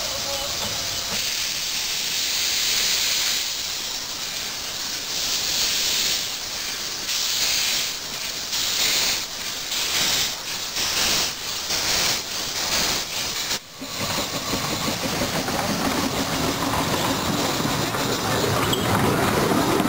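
Minimum-gauge steam locomotive pulling away with its train: hissing steam and exhaust beats that come faster and faster as it gathers speed. After a break about two-thirds of the way through, a steady rumble of the moving train heard from on board.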